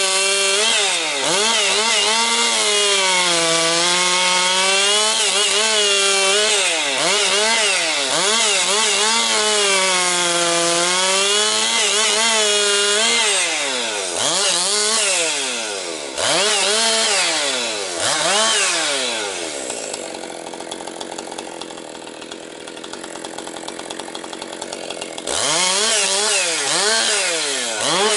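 Husqvarna 262XP two-stroke chainsaw cutting dry pine firewood, its engine pitch sagging as the chain bites into the wood and climbing again, over and over. Near the middle it is revved up and down quickly several times, then drops to a quieter idle for about five seconds before being revved hard back into the cut.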